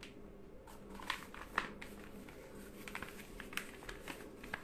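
Faint rustling and scattered light clicks of a sheet of printed paper being handled and lifted up.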